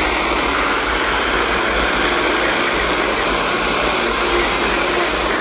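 Steady FM radio static from a software-defined radio receiver: a loud, even hiss with no program audio.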